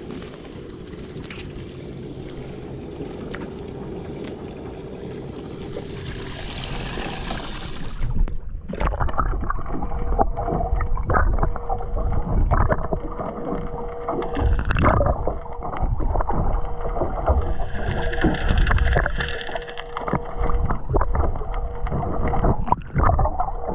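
Water noise around a fishing kayak with a faint steady hum. After about eight seconds it gives way to many irregular knocks, bumps and splashes.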